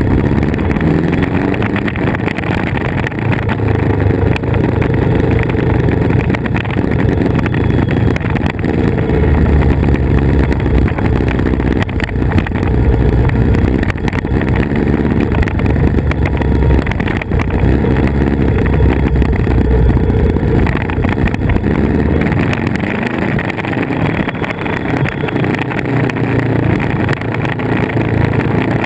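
Yamaha VMAX 1700's V4 engine running as the motorcycle is ridden through a series of bends, with wind rushing over the on-bike microphone. About two-thirds of the way through the deep engine rumble eases and a higher hiss comes up.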